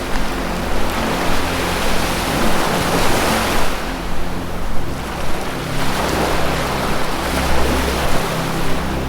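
Ocean waves washing in, the surf swelling twice and falling back, over a low sustained music drone.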